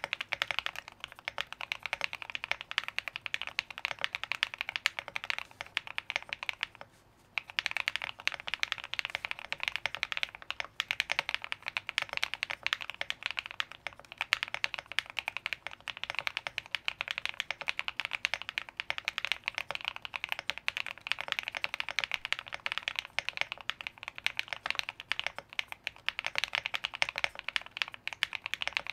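Continuous fast typing on a custom mechanical keyboard with lubed KTT Kang White v3 linear switches on an FR4 plate, a quick run of bright, clacky keystrokes, likened to typing on Lego. Typing pauses briefly about seven seconds in, then resumes.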